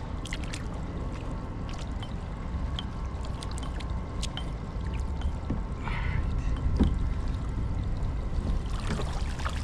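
Crab trap being hauled up out of the water, water pouring and splashing off it, with scattered clicks and knocks of the trap's wire over a steady low rumble.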